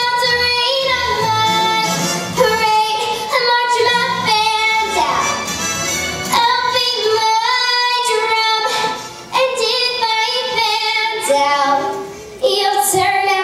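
A young girl singing a Broadway show tune solo over musical accompaniment, holding long notes between short phrases.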